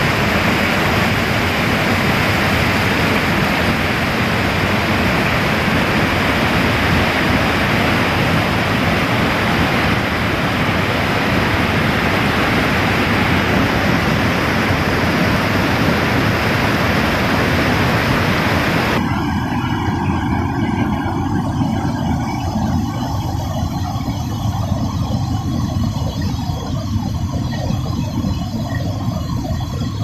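Rushing water of river rapids pouring over boulders: a loud, steady wash of noise. About two-thirds of the way in, the hiss drops away suddenly and the rush turns duller.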